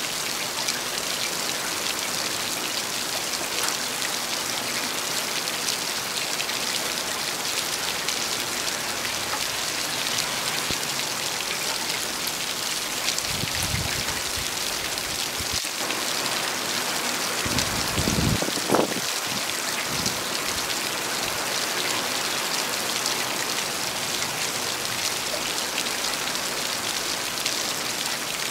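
Heavy rain falling steadily, a dense even hiss of drops on the ground and surfaces. About halfway through, a few short low rumbles rise out of it, the loudest a little after the middle.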